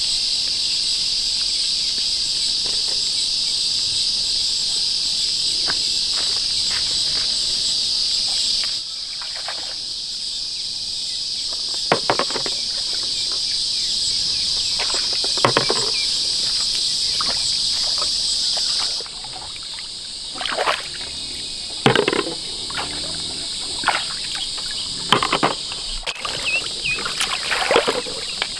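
Loud, steady, high-pitched buzzing of an insect chorus, which stops about a third of the way in, resumes, and stops again about two-thirds in. Short splashes and sloshes of hands working in shallow pond water come every few seconds from about the middle on, growing more frequent near the end.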